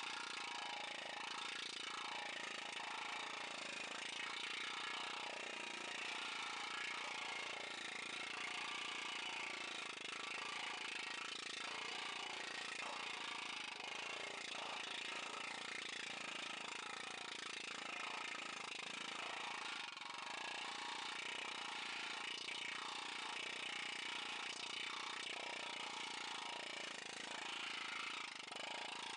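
Planishing hammer running steadily as a sheet-metal fender panel is worked between its dies, smoothing out a shrunk area.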